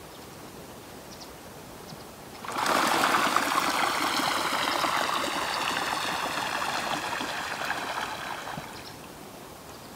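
Water pouring in a steady rushing stream. It starts abruptly about two and a half seconds in and dies away about six seconds later.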